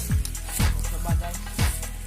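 Background music with a steady beat: a deep, falling kick drum about twice a second over a bass line.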